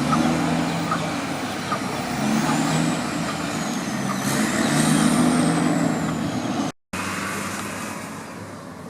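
A large motor vehicle's engine running with a steady low drone, over a high thin whine that rises and falls. The sound drops out for a moment near the end.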